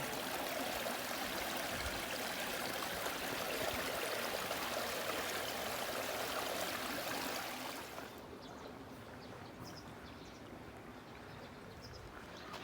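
Running water from a stream, a steady rushing hiss. About eight seconds in it cuts to a much quieter outdoor background with a few faint, short high chirps.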